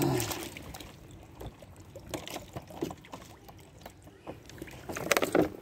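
Water being poured and sloshing into a cats' water bowl, with small knocks of handling, and a cluster of louder splashes near the end.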